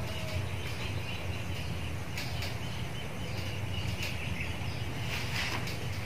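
Rural outdoor ambience: a steady low rumble with a few faint, short high chirps now and then, typical of birds.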